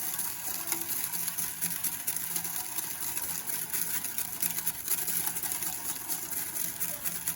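Coarse sea salt grains pouring into the plastic water basin of a Sirena water-filter vacuum: a steady, dense crackle of many tiny ticks.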